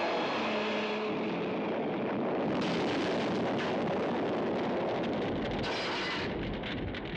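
Fiat 130 sedan exploding in a fireball about two and a half seconds in, a sudden burst that widens into a sustained noise of fire and blast. Before that, the noise of the car driving by.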